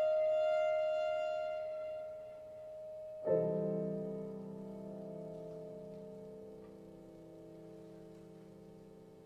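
A held clarinet note fades away over the first two seconds. About three seconds in, a single chord is struck on a grand piano and left to ring, slowly dying away.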